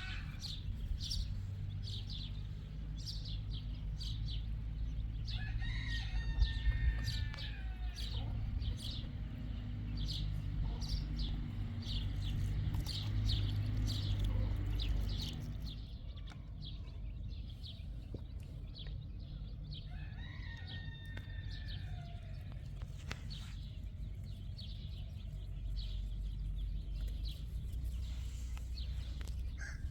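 A rooster crowing three times: about five seconds in, about twenty seconds in, and again right at the end. Through the first half, short high chirps repeat rapidly, and a steady low rumble runs underneath.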